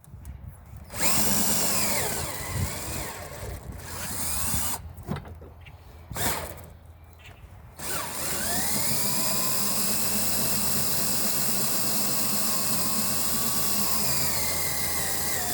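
DeWalt DC970 18-volt cordless drill running in three runs, a short pause between each, while drilling into a wooden board: its motor whine sags and recovers under load, and the last run, from about halfway, is long and steady. The drill is straining to finish a hole on a nearly spent battery.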